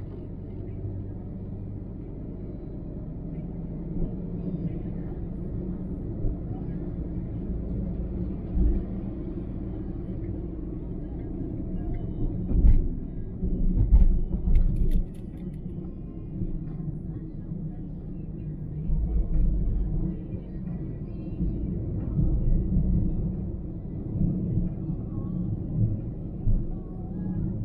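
Car driving on the road: a steady low road rumble, with heavier low surges about halfway through and again a little later.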